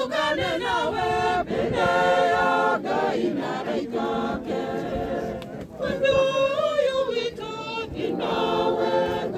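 A crowd of mourners singing together, unaccompanied, in long held notes.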